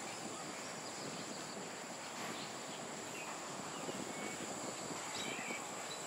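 Steady high-pitched drone of insects in park vegetation, with a few short, faint bird chirps in the middle and near the end.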